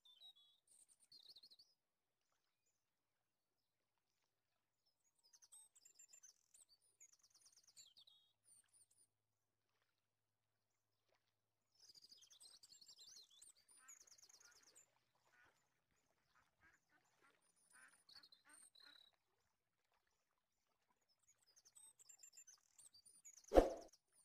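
Mostly very quiet, with faint high chirps now and then. Near the end a glass lid clanks down once onto a metal cooking pot and rings briefly.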